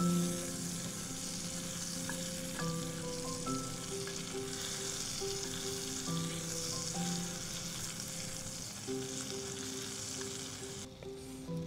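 Ground cherries sizzling and frying in the hot fat of a cast-iron skillet, stirred with a wooden spoon; the sizzle cuts off near the end. Soft background music plays underneath.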